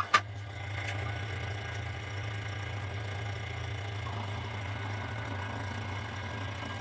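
A machine running with a steady low hum, and one sharp knock just after the start.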